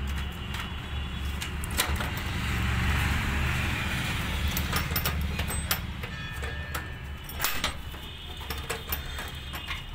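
Plastic side cover of a Canon imageRUNNER Advance 4245 copier being pulled and handled by hand, giving scattered knocks and clicks. Under it runs a steady low hum, and a rushing noise swells and fades over the first few seconds.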